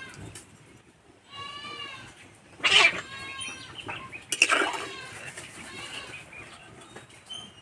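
A domestic animal calling about four times, with high, wavering calls between about one and five seconds in.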